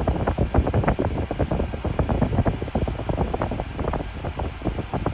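Wind buffeting the microphone outdoors: a continuous low rumble with rapid, irregular crackles.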